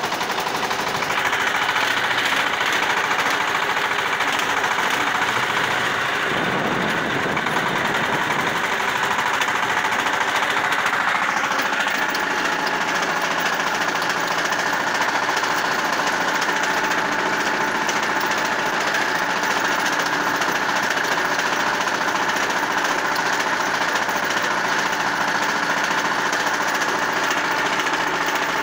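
Shifeng SF350L tractor's diesel engine running under load as it pulls a 1.4 m rotary tiller through the soil: a steady, dense mechanical clatter that builds over the first couple of seconds as the tractor moves off, then holds level.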